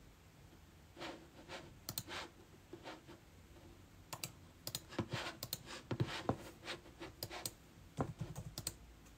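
Typing on a computer keyboard off-mic: irregular clusters of key clicks and taps, busiest in the second half.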